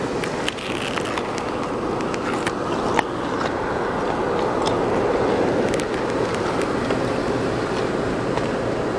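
Close rustling and scraping as an elk's muzzle and fur brush against the camera, a steady noise with scattered clicks.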